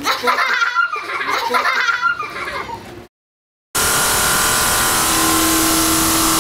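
Children laughing and giggling in quick high-pitched bursts. About three seconds in this cuts off abruptly to silence, and then a loud steady hiss-like drone with a few faint held tones starts.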